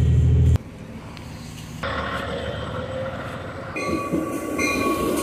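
Train sounds in several short clips joined by abrupt cuts: a loud low hum from inside a rail vehicle, then a train running with steady high ringing tones that stop and start briefly near the end.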